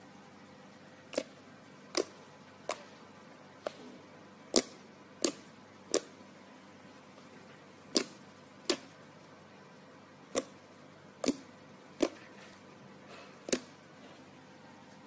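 Slime being poked and pressed, giving about a dozen sharp pops at irregular intervals of roughly one a second.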